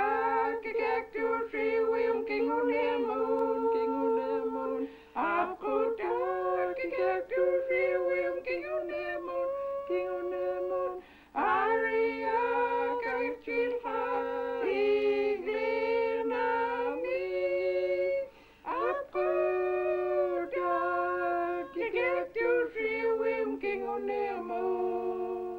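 A small group of women singing a song together unaccompanied, in long held phrases with short breaks about 5, 11 and 18 seconds in.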